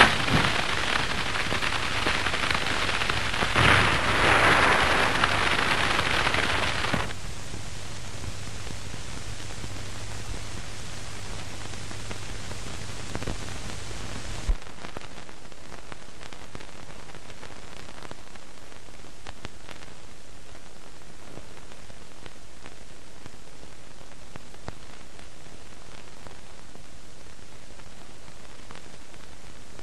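Steady hiss of an old optical film soundtrack. For the first seven seconds or so a louder rushing noise with a few crackles lies over it and stops abruptly. A single click comes about halfway through.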